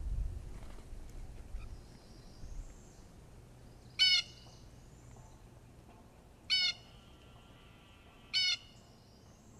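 Blue jays giving three short, harsh jay calls, the second about two and a half seconds after the first and the third two seconds later: scolding calls of jays mobbing a bald eagle.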